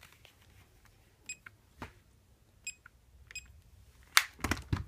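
Fluke handheld digital multimeter giving three short high beeps, with light clicks, as it is switched and its buttons are pressed. Near the end a sharp click and a brief clatter as the meter is handled on the bench.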